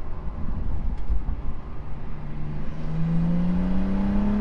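BMW M235i with a CTS cold air intake accelerating under a heavy low rumble, its engine note rising steadily in pitch through the second half.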